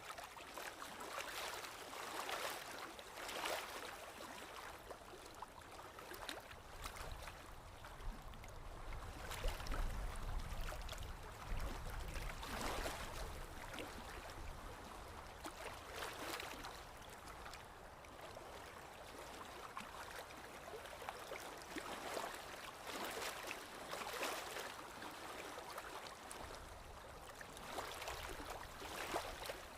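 Running water, a stream or small cascade splashing and gurgling, swelling and easing every second or two. A low rumble joins in for several seconds in the first half.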